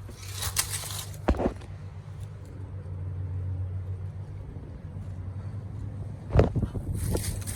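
A steady low mechanical hum, with sharp knocks and scrapes about a second in and a louder cluster of them near the end.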